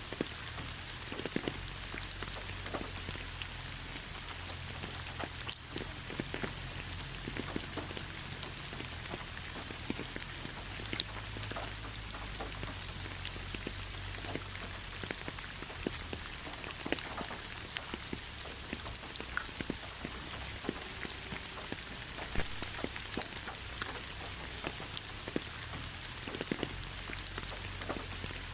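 Steady rain falling, with many separate drops ticking sharply against a surface over an even hiss.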